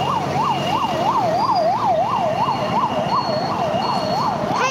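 An electronic siren warbling quickly up and down, about three rises a second, with a faint high steady beep coming and going above it.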